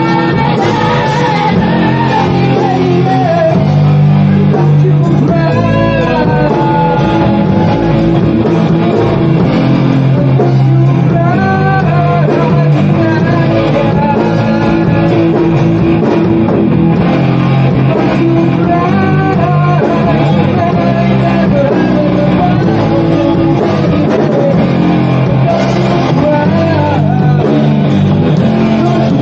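Rock song with guitar and a singing voice, playing steadily.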